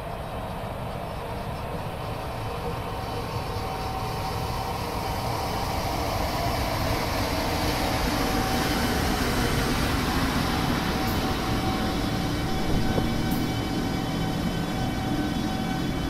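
JR Freight EF210 electric locomotive pulling a container freight train away from the platform. The hum and whine of its inverter-driven traction motors, with several steady tones, grows louder as it moves past close by, over the rumble of wheels clacking across rail joints.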